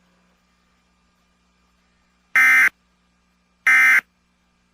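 Emergency Alert System end-of-message signal: two short bursts of SAME digital data tones, each about a third of a second long and a little over a second apart, marking the end of the alert.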